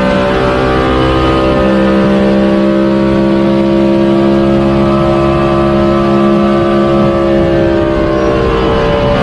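Engine sound effect: an engine running at a steady speed with a constant, buzzy pitched note. The pitch shifts slightly about seven and a half seconds in.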